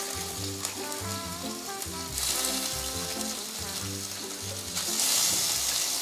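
Salmon sizzling as it goes into hot butter and margarine in a stainless steel pan; the sizzle grows louder about two seconds in and again about five seconds in. Background music plays underneath.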